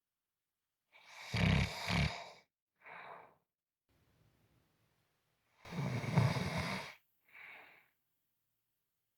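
A person snoring in sleep: two loud snores, the first about a second in and the second nearly five seconds later, each followed by a shorter, softer breath.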